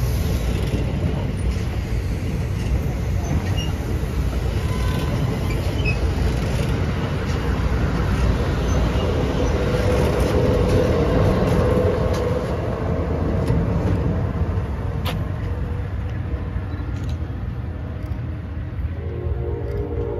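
Amtrak passenger cars rolling past close by: a steady rumble of steel wheels on rail, with scattered faint clicks.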